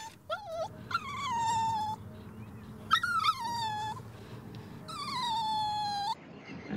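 Golden retriever puppy whining: a few short high yelps at first, then three long high whines about a second each, each starting higher and sliding down in pitch.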